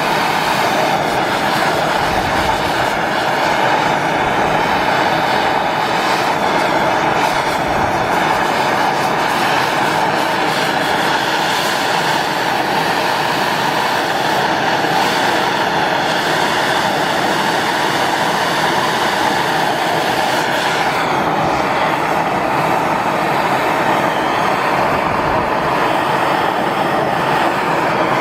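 MAP gas torch burning with a steady hiss as it heats a swaged copper pipe joint, bringing it up to temperature before solder is fed in.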